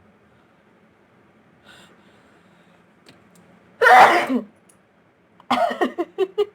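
A woman sneezes once, loudly, about four seconds in, a sneeze provoked by tickling inside her nose. A faint sniff comes before it, and a quick run of short breathy voice sounds follows about a second later.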